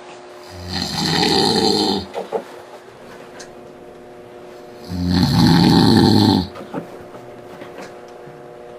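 A man snoring loudly in his sleep: two long snores, each about a second and a half, roughly four seconds apart.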